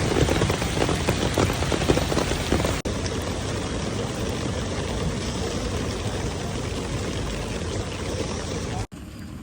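Heavy rain falling, a dense hiss full of individual drop ticks. About three seconds in it changes abruptly to a steadier, slightly softer hiss, and near the end it cuts suddenly to a quieter level.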